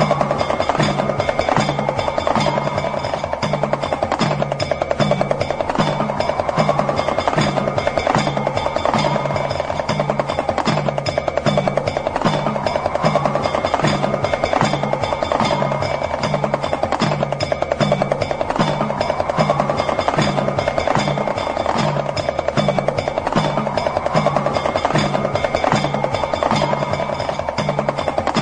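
Damru, the Indian two-headed hand drum, rattled in a fast continuous roll. Under it runs a low drone pulsing about once a second, and over it a tone rises and falls every couple of seconds, as meditation music.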